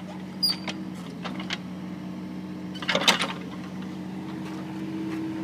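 Mini excavator's engine running at a steady hum, with a few short clicks and a louder burst of knocks about three seconds in.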